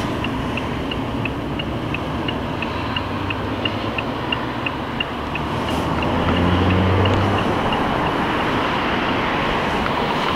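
2021 Mazda 6's 2.0-litre four-cylinder petrol engine idling, heard from inside the cabin as a steady low hum that swells briefly about six seconds in. A light, even ticking about three times a second runs alongside it and stops shortly after the swell.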